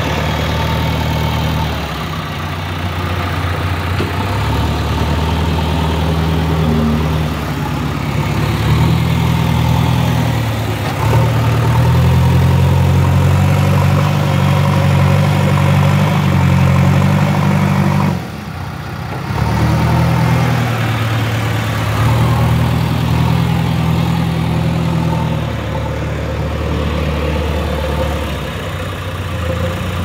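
JCB 3DX backhoe loader's diesel engine working under load as the loader scoops earth and raises its bucket, its note stepping up and down repeatedly, with a brief drop about two-thirds of the way through.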